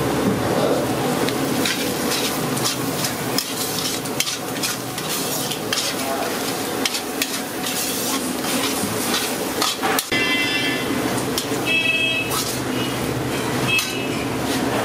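Onions and green chillies frying in oil in a black iron kadai, sizzling steadily while a perforated steel ladle stirs them, with frequent clicks and scrapes of metal on the pan.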